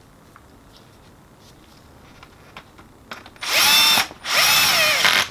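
Cordless drill-driver driving screws into the end plate of a Ricoh MP copier drum unit: two short runs of motor whine, starting about three and a half seconds in, the second rising and then falling in pitch. Before them only a few faint clicks.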